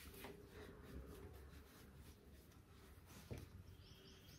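Near silence: room tone, with a faint click about three seconds in.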